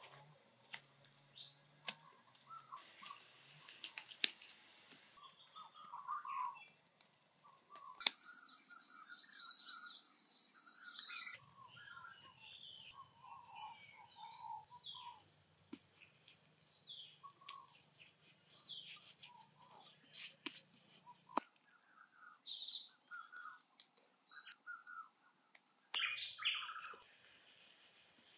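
Tropical forest ambience: insects drone at a steady high pitch while birds chirp repeatedly, with scattered soft clicks and slaps from wet mud being pressed and smoothed by hand. The background changes abruptly several times, and turns quieter for a few seconds past the middle.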